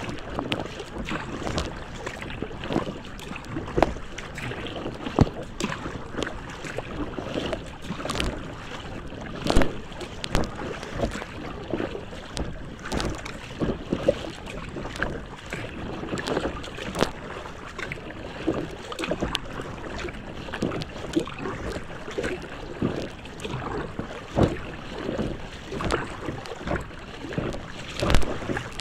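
Choppy lake water slapping and splashing against a kayak's bow as it moves through small waves, in irregular splashes over a steady wash of water.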